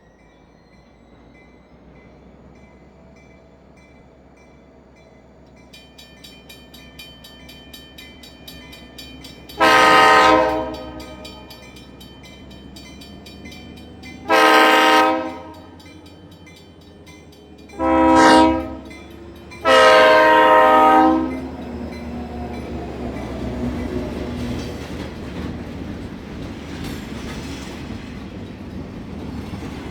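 Train horn sounding the grade-crossing pattern: two long blasts, one short and one long, over a bell ringing in quick repeats. After the last blast the rumble and clatter of the passing train grow louder.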